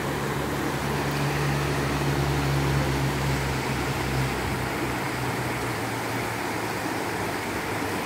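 Mountain river rushing over rocks in shallow rapids: a steady, even wash of water noise, with a low rumble in the first half that fades out.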